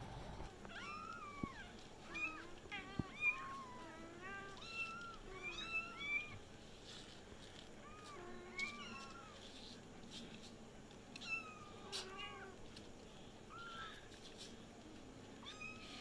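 Young kittens mewing: a long run of short, high-pitched mews that rise and fall in pitch, several kittens calling at once.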